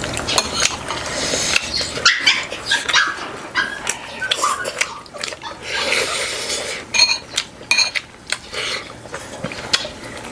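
A dog barking in short, repeated yelps, mixed with the clink of dishes and utensils.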